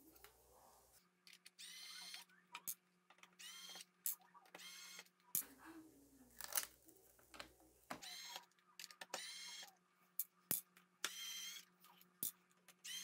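A pen-style electric precision screwdriver whirring in about seven short bursts, each a brief rising whine, as it backs out Phillips screws, with small clicks between the bursts.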